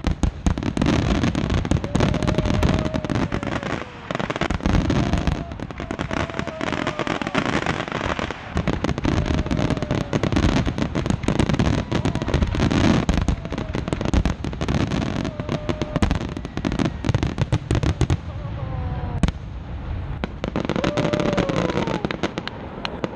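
Grand-finale barrage of aerial firework shells bursting in rapid succession, many sharp reports a second running together with crackle. The barrage thins out a little near the end.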